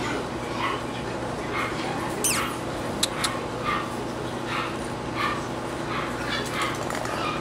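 English Bulldog puppies making short, repeated yips and whines, about one or two a second, over a steady background hum. Two sharp clicks come about three seconds in.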